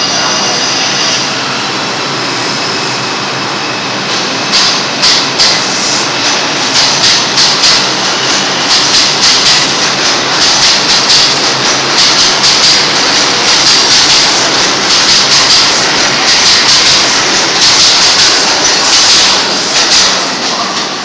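New York City subway R142 train pulling out of the station. A steady rumble with a faint high whine as it starts off, then the wheels begin clicking over rail joints about four seconds in, in a rhythm that quickens and grows louder as the cars pass. The sound drops away near the end as the train leaves.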